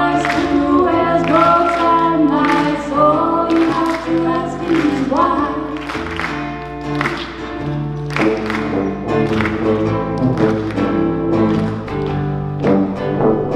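Live band music: women's voices singing in harmony over plucked-string accompaniment and a low, steady bass line. The voices fade back about halfway through, leaving the plucked notes and bass to carry on.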